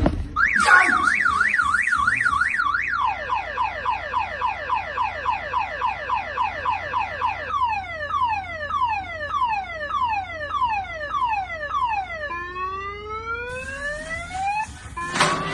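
A car alarm going off just after a blast, cycling through its tones. First comes a fast up-and-down warble, then a few seconds of rapid falling chirps, about five a second. These give way to slower falling sweeps, about two a second, and then slow rising whoops. A short bang comes near the end.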